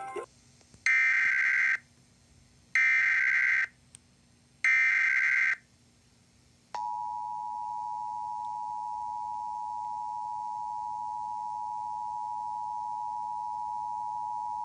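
Emergency Alert System header: three short bursts of digital data tones, each just under a second long and about two seconds apart. Then comes the two-tone attention signal, a steady dual tone held for about eight seconds, announcing a tornado warning.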